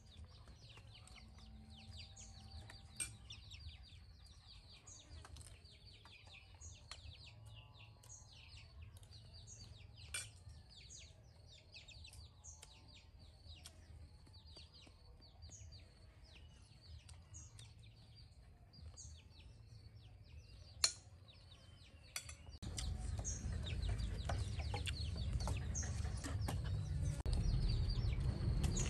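Small birds chirping again and again, with chickens clucking softly and a few sharp clinks of a spoon on a plate. About three-quarters of the way through, a louder low rumble comes in under the birdsong.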